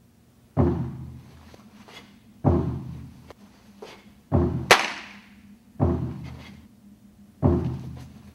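Drum beaten at a steady slow count, five heavy strokes spaced about a second and a half to two seconds apart, pacing the moves of a Tang Soo Do hyung. A sharp snap follows just after the third stroke.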